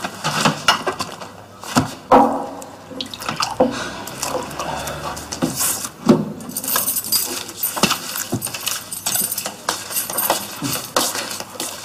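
Small knocks, clinks and rustles of things being handled in a kitchen and living room, with water running like a kitchen tap in the second half.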